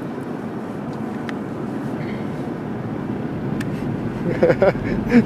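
Steady road and engine noise inside a moving car's cabin. Near the end, an 8-week-old German Shepherd puppy starts whimpering in short, high cries.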